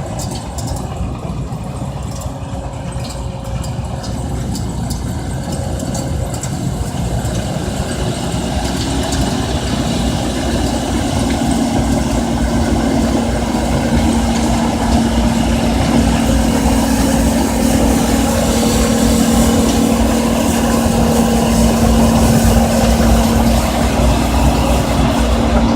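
John Deere C670 combine harvester running in a rice field, its engine and threshing machinery getting steadily louder, with a steady hum that sets in about a third of the way through.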